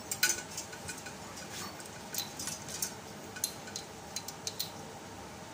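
Irregular light metallic clicks and clinks as a steel high-pressure fuel pipe is handled and fitted against the outlet fittings of a rotary diesel injection pump.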